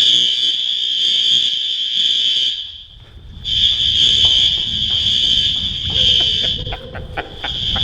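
Apartment building fire alarm sounding a loud, steady high-pitched tone in long blasts of about three seconds with short breaks between. A low rumble and a few clicks come in under it near the end.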